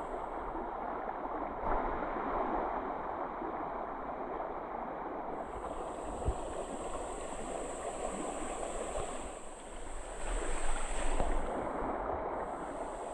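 Creek water lapping and sloshing right beside a camera held at the surface as a swimmer moves through it, swelling louder for a moment about ten seconds in.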